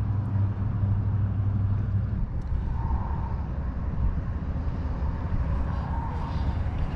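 Steady low rumble of a distant engine, easing a little about two seconds in.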